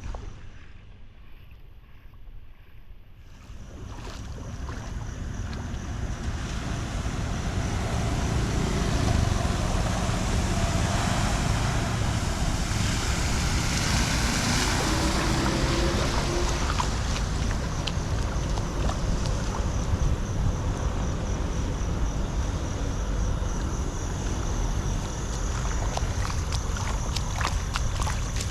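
Water rushing steadily into a storm drain, building up over the first several seconds and then holding strong.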